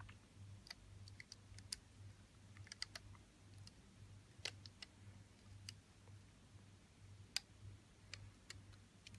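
Faint, irregular light clicks of a plastic hook tool and silicone rubber bands being worked over the pegs of a plastic loom, as the bottom bands are hooked up, over a faint low hum.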